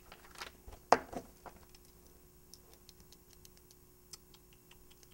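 Sheets of paper handled and turned over on a desk: a few short rustles and knocks in the first second and a half, the loudest a little under a second in, then faint light ticking.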